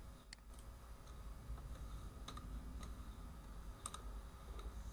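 A few scattered, faint clicks from computer keys and mouse buttons during code editing, over a steady low hum.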